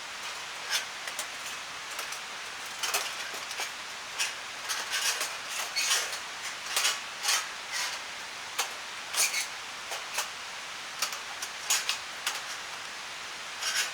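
Metal parts of a flat-pack fire pit clinking and scraping as they are fitted and slotted together: many short, irregular metallic clicks over a steady background hiss.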